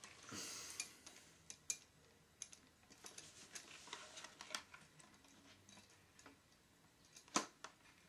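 Faint, irregular clicks and taps of a plastic Thomas the Tank Engine toy being turned over in the hands, with a soft rustle at the start and one louder click near the end.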